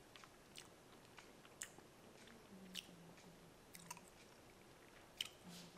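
Faint chewing of beef jerky: soft mouth clicks scattered through, with a faint low hum in broken stretches over the last few seconds.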